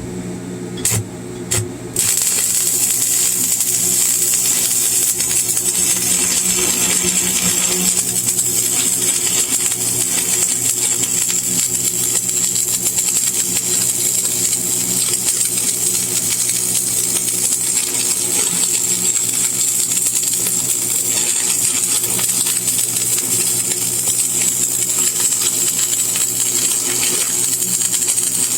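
Stick welding arc burning an E6013 rod: a few short scratches as the arc is struck, then a steady crackling sizzle from about two seconds in. A steady hum from the welding machine runs underneath.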